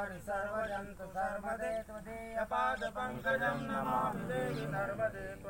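Men's voices chanting a devotional chant, with some notes held in a singsong.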